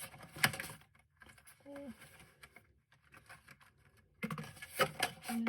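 Cardboard and paper goods being handled in an opened box: light rustling and taps, with a sharp click about half a second in and a cluster of clicks and rustles near the end.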